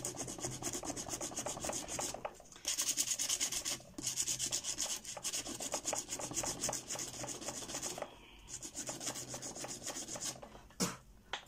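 Hand sanding along the edge of a resin table: quick, even back-and-forth scraping strokes of a folded sheet of sandpaper, with a few short pauses, stopping about a second before the end after a single light knock.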